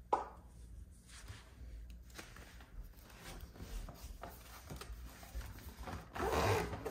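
Hands opening a paperback picture book and smoothing its pages flat on a wooden table: a sharp click at the start, then faint paper rustles and light taps, with a short louder rustle about six seconds in.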